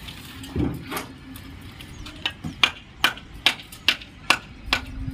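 Hammering: a few scattered knocks, then from about two seconds in a steady run of sharp strikes, two or three a second.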